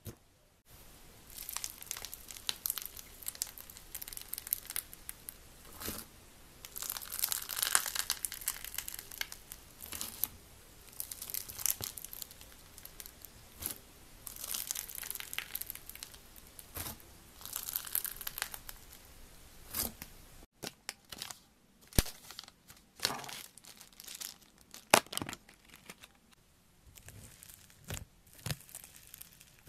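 Hands squeezing and kneading slime, including foam-bead floam, making crackling, crinkling sounds in repeated waves of a second or two. In the last third the sound turns to sharper, separate pops and clicks.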